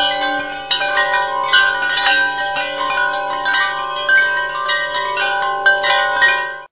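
Background music of ringing, chime-like notes over a steady low drone, starting and cutting off abruptly.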